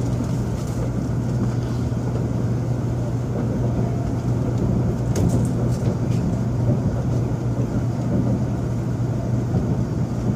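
Cabin noise inside a Taiwan High Speed Rail 700T electric bullet train running out of the station: a steady low rumble with a constant low hum, and a few faint clicks about five seconds in.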